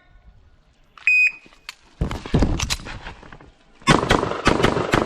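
An electronic shot timer beeps once, briefly, about a second in: the start signal. About a second later a Bul SAS II pistol starts firing, a quick string of shots, a short pause, then another fast string.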